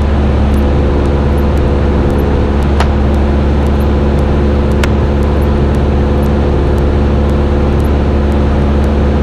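Cessna 172's piston engine and propeller running at a steady cruise power, a constant drone with no change in pitch.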